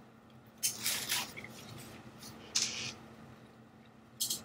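Quiet mouth sounds of a man chewing a forkful of spaghetti, with three short, crisp noises: about a second in, midway, and near the end.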